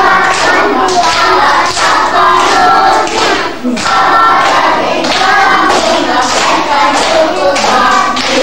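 A group of young children singing a song together while clapping their hands along with it; the singing stops right at the end.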